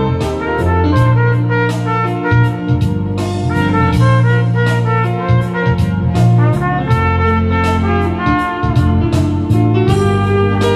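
Trumpet playing a melody of long held notes over a backing track with bass and a steady drum beat.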